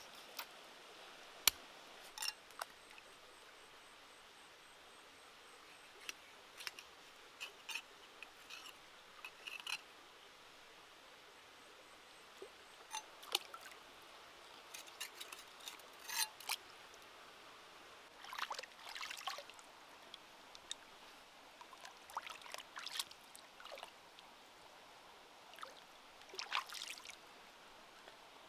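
Knife blade cutting an eel on a wet stone, with scattered sharp clicks and knocks, followed by short splashes as the eel pieces are rinsed in shallow water. Running stream water trickles steadily underneath.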